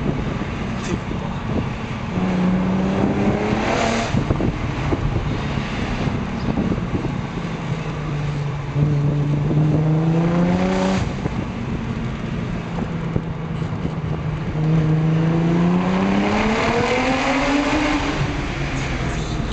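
Stage 3 tuned Audi S4 B5's 2.7-litre twin-turbo V6 heard from inside the cabin, accelerating hard in three pulls, the pitch rising through each and dropping sharply between them. A short rush of noise marks the end of the first two pulls.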